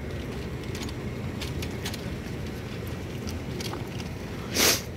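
Stretcher casters rolling over cracked asphalt: a steady low rumble with small rattles and clicks. A short, loud hiss cuts in briefly near the end.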